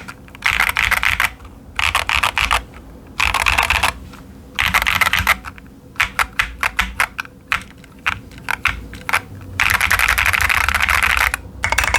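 Typing on a Keychron Q10 mechanical keyboard with TTC Chaotic Panda switches and SA-profile doubleshot ABS keycaps: several short bursts of fast keystrokes, a stretch of single separate key presses in the middle, then a longer run of fast typing near the end.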